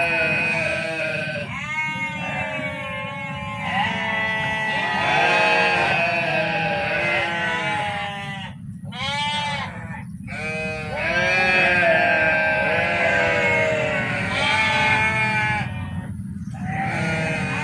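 Several farm animals bleating, one call after another and often overlapping, with only brief gaps.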